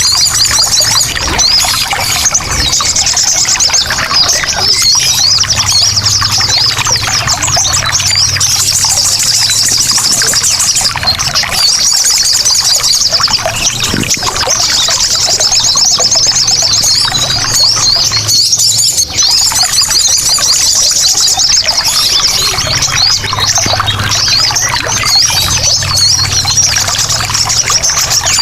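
A flock of sogon birds chattering non-stop in a dense, high-pitched twittering, over the steady splash of trickling water: a noisy lure recording meant to set caged birds calling.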